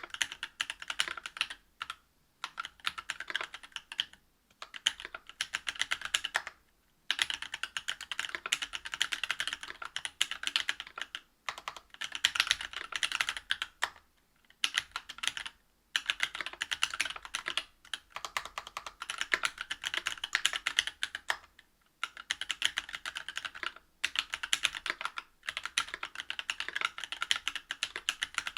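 Typing on a Whale 75 mechanical keyboard fitted with stock Cannonkeys Lilac Linear 62g switches, a brass plate and GMK keycaps. Fast keystrokes come in runs of a few seconds, broken by brief pauses.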